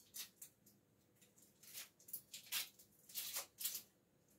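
Knife cutting an onion held in the hand: a series of faint, short, sharp cuts at uneven intervals, coming in a few quick groups.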